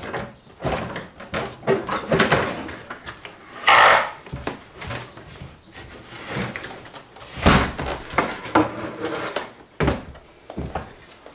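Wooden pinball playfield of a 1979 Williams Time Warp being lifted and tilted up out of its cabinet: a string of clunks, knocks and scrapes, with two louder scraping knocks about four and seven and a half seconds in.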